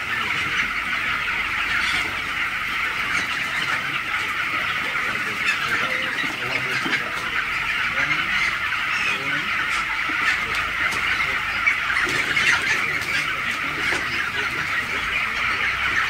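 A large flock of Cobb 500 broiler chickens in a shed peeping and chirping, many birds at once in a dense, unbroken chorus.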